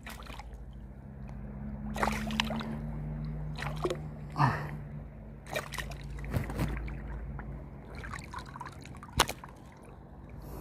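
Sea water sloshing and splashing at the side of a small boat, with scattered short knocks and splashes over a low steady hum.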